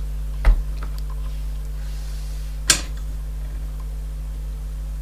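Jumper wire being pushed into a solderless breadboard: a soft knock about half a second in and a sharp click near the middle, over a steady low electrical hum.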